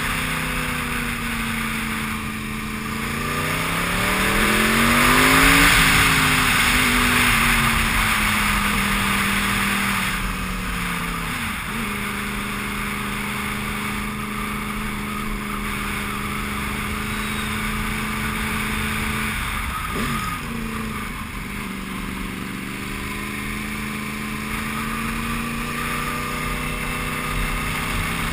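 Sport motorcycle engine running under way, rising in pitch as it accelerates a few seconds in and then easing off. The note breaks off and picks up again twice, as at gear changes, over steady wind rush on the microphone.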